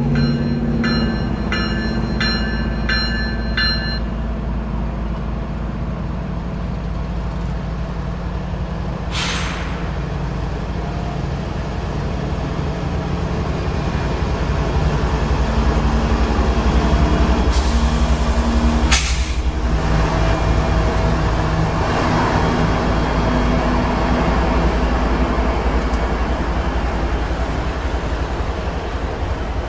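Norfolk Southern diesel freight locomotives passing close, engines running under power, then the steady rumble of container cars rolling over the rails. A grade-crossing bell rings for the first few seconds, and there are two short hisses, about nine seconds in and again near nineteen seconds.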